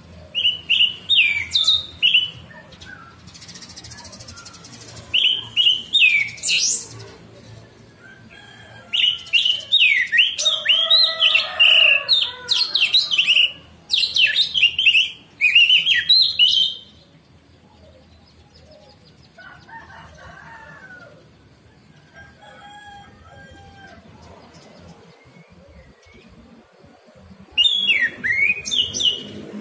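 Orange-headed thrush singing loud, high, quickly varied phrases in four bursts, the longest lasting about eight seconds in the middle. Fainter, lower sounds fill the pauses.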